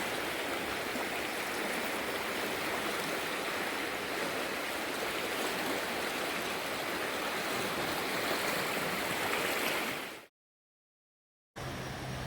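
Rain-swollen river rushing past in a steady, even roar of flowing water, the river running about three feet above its usual level. The sound cuts off about ten seconds in, and a steady low hum starts shortly before the end.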